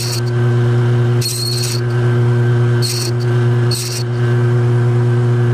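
Metal lathe running steadily with a strong motor hum while facing a plastic housing, with several short high hissing bursts as the cutting tool bites.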